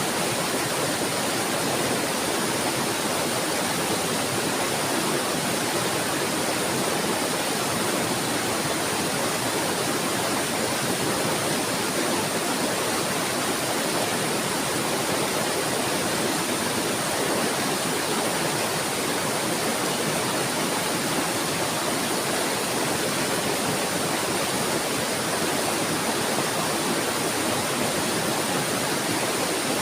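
Flowing water babbling steadily, an even, unbroken rush with no birdsong standing out.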